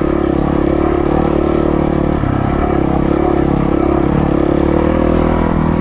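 A 450cc single-cylinder four-stroke dirt bike engine running under way at a fairly steady speed, its note wavering slightly up and down.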